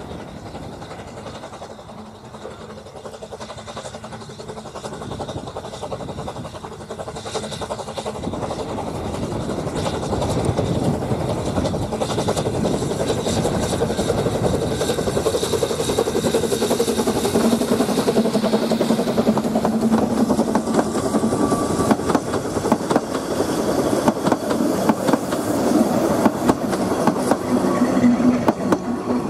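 Narrow-gauge steam tank locomotive hauling a train of carriages, approaching from a distance and passing close by. It grows steadily louder as it nears, with a dense clatter as the engine and carriages go by near the end.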